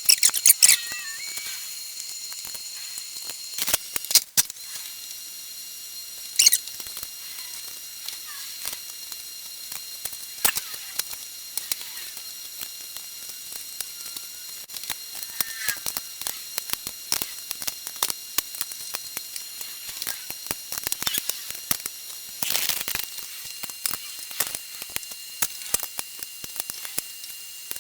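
Scattered light clicks and knocks of small hardware and parts being handled, over a steady high hiss, with a few louder knocks.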